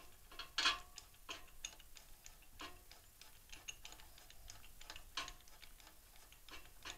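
Faint, irregular metallic clicks and ticks from a spark plug socket and new spark plug being turned by hand, threading the plug into a small engine's cylinder head.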